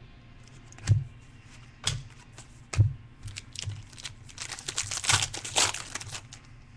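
Trading cards and a foil card-pack wrapper being handled on a tabletop: three light knocks about a second apart, then a stretch of crinkling and tearing as a new pack is worked open.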